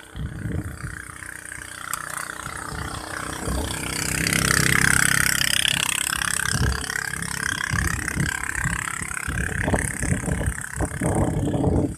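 A motorcycle passes close by, its engine loudest about four to five seconds in, then its note drops in pitch and fades as it rides away.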